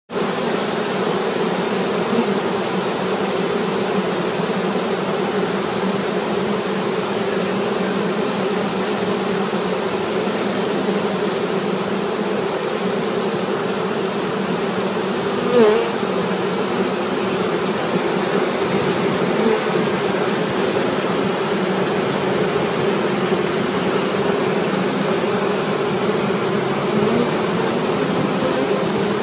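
Steady, dense buzzing of a large honeybee swarm as thousands of bees walk into a hive box after a swarm capture. A brief bump stands out about halfway through.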